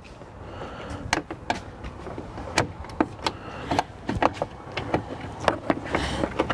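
Plastic push-pin trim clips being pried out of a truck's plastic radiator cover with a flathead screwdriver and a clip-popping tool: irregular sharp clicks and scrapes of metal tool on plastic.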